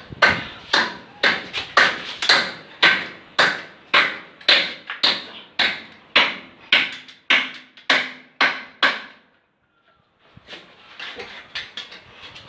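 A hammer striking repeatedly at a steady pace, about two blows a second, each blow ringing briefly. The blows stop about nine seconds in; after a short pause a rougher, continuous noisy sound follows.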